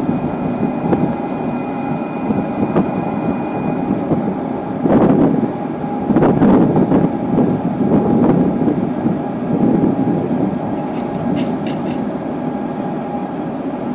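Green Cargo electric locomotive standing with its machinery running: a steady hum with a faint whine, rising and falling rushing noise, and a few sharp clicks near the end.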